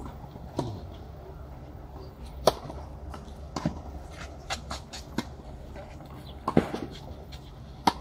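Tennis rally on a clay court: a sharp racket strike about two and a half seconds in, then more racket-on-ball pops and ball bounces trading back and forth at irregular intervals of about a second.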